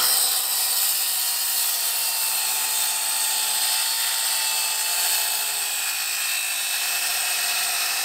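Milwaukee circular saw running steadily as its blade cuts through a Douglas fir board.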